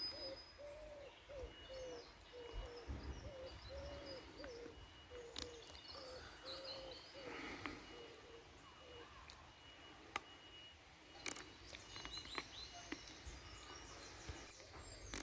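Quiet lakeside ambience of birds calling: a lower call repeats in short arched notes, about two a second through the first half, over scattered high chirps from small birds.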